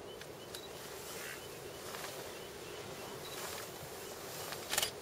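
Steady open-grassland ambience: a low buzzing drone with faint short high chirps now and then, and one brief loud rustle or knock near the end.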